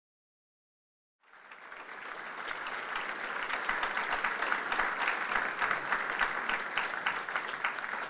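Audience applauding, many hands clapping at once; it starts abruptly about a second in, swells, and begins to die away near the end.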